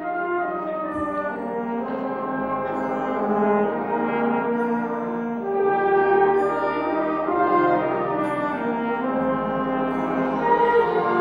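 High school concert band playing held chords, the brass prominent, slowly growing louder.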